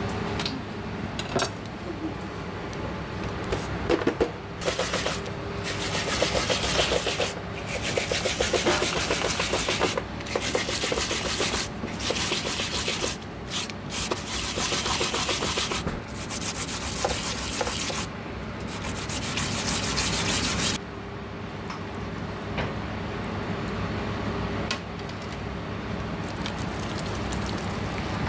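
Daikon radish being grated on a metal grater: fast rasping strokes in runs of a few seconds with short pauses, stopping about three quarters of the way through.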